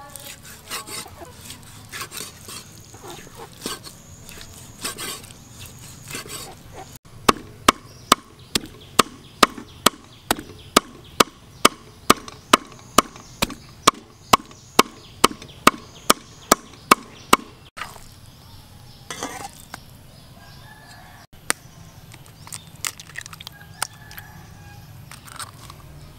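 A steel cleaver cutting and mincing pork on a wooden chopping board. The first few seconds are softer slicing, then come about ten seconds of sharp, evenly spaced chops, about two and a half a second.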